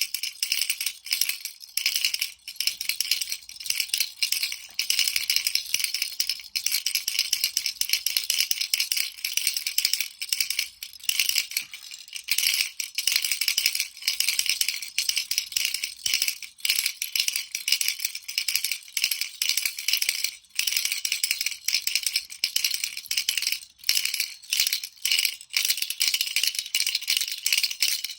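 Baby rattle shaken continuously, a fast, uneven high-pitched rattling with brief pauses.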